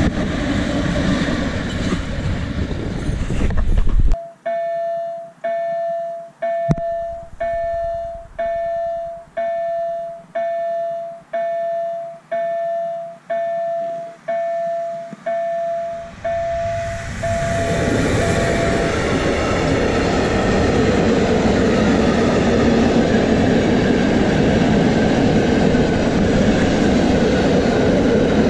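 A train with electric locomotives passing, then a level-crossing warning bell ringing with a steady ding about once a second for some twelve seconds while the barrier is down. The bell fades out as a freight train of cement hopper wagons arrives and rumbles steadily past.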